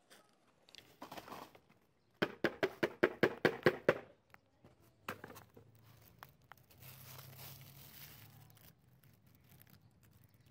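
Plastic litter and rubbish rustling and crinkling as a hand digs through a trash heap. The loudest part is a quick run of about a dozen sharp strikes, about seven a second. A single knock and a soft hissing rustle follow.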